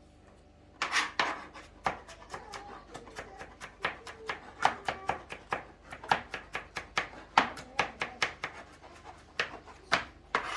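Kitchen knife chopping garlic on a cutting board: quick, irregular knocks of the blade against the board, starting about a second in and going on to the end.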